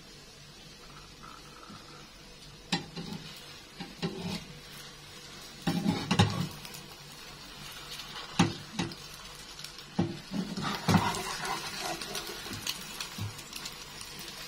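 Metal spatula scraping and knocking against a nonstick frying pan as it is worked under a round of flatbread on frying egg, a few separate knocks at first and busier scraping in the second half, over a faint sizzle.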